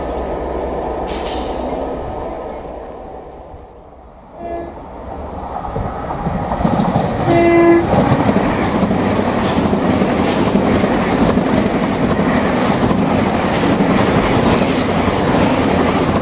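A Great Western Railway Hitachi Intercity Express Train passes through the station at speed. It gives a short horn note, then a longer, louder horn blast about three seconds later, followed by the loud rush and rhythmic wheel clatter of the train going by. Before that, a steady low rumble fades away over the first few seconds.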